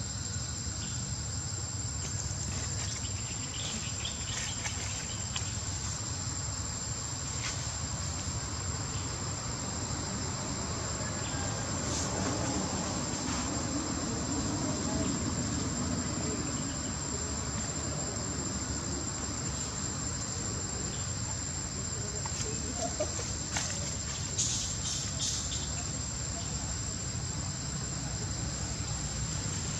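Insects chirring in a steady high-pitched drone over a low background rumble, with a few short clicks about three-quarters of the way through.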